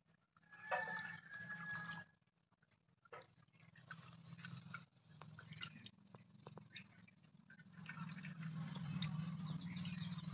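Hot ghee poured from a ladle through a steel strainer into a steel pot, trickling and crackling faintly as it froths, with scattered small clicks.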